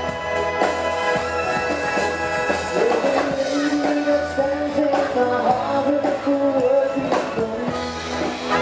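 A naval band playing a song live, with a singer's voice over the band.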